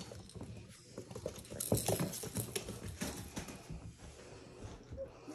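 Portidoodle puppies scampering in play on a wood-look floor: a busy patter of paws and clicking claws with scuffling.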